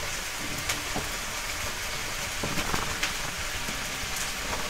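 Butterflied chicken breast frying in a pan: a steady sizzling crackle, with a few faint clicks over it.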